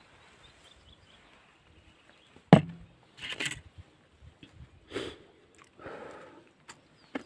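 A sharp crunching crack about two and a half seconds in, then several short crunchy bursts about a second apart: someone biting into and chewing a pickled cucumber close to the microphone.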